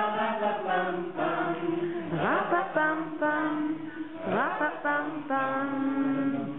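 A group of voices singing or chanting together in held notes, with two swooping slides in pitch about two and four seconds in.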